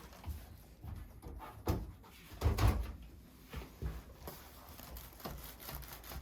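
A patient turning over onto his back on a chiropractic adjusting table: scattered clunks and soft thumps, the heaviest thump about two and a half seconds in.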